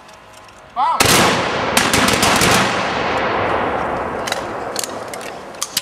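A ragged volley of hunting guns fired together into the air about a second in, a few stray shots following, the echo dying away slowly over several seconds.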